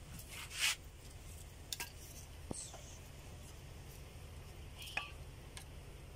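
A few light metallic clicks and scrapes from tools and parts being handled during a small generator repair, scattered over a low steady hum.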